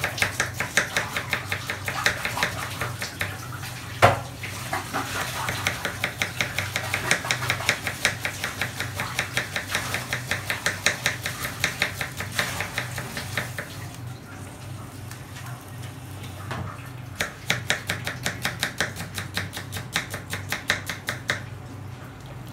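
Knife chopping red onion on a wooden cutting board in fast, even strokes, about five a second. There is one louder knock about four seconds in, and a pause of a few seconds past the middle before the chopping starts again.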